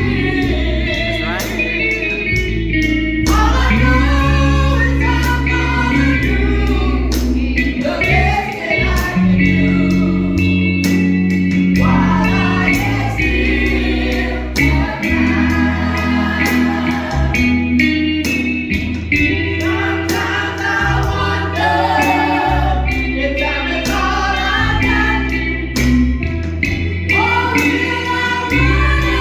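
Gospel music: a choir singing over an instrumental accompaniment with bass and a steady drum beat.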